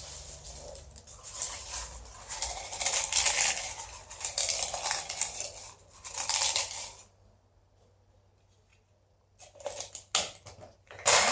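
Dried bay leaves rustling and crackling as they are handled, in irregular bursts for about seven seconds. After a short pause come a few clicks, and an electric coffee grinder's motor starts up right at the end.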